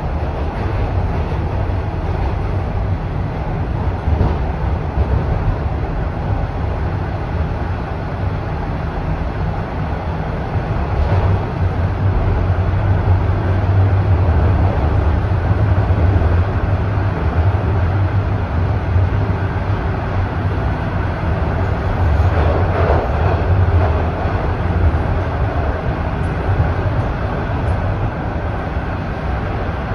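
Toronto Rocket subway train running between stations, heard from inside the car: a steady low rumble of wheels and motors with a noisy hiss above it, a little louder through the middle stretch.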